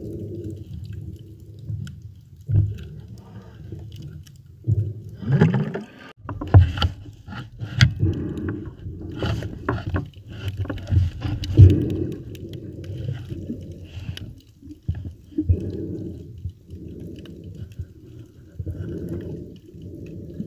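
Muffled underwater noise picked up by a camera held below the surface: a low rumble of water moving and sloshing as the diver swims, with a run of sharp clicks and knocks between about five and twelve seconds in.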